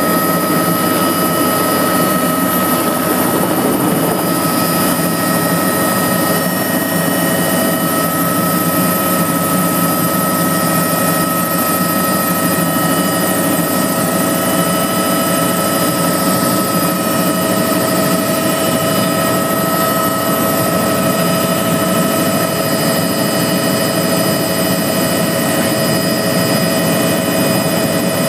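Bell 206 helicopter in flight, heard aboard: its turbine and rotor run with a constant loud noise and a steady high whine. The sound holds level throughout, with no change in power.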